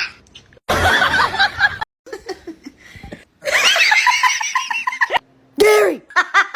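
A person laughing, including a run of quick repeated "ha-ha" pulses, heard in short stretches that start and stop abruptly.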